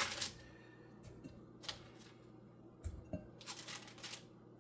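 A few brief rustles and soft thumps as hot baked chicken wings are handled and dropped into a bowl of sauce, with a longer rustle near the end.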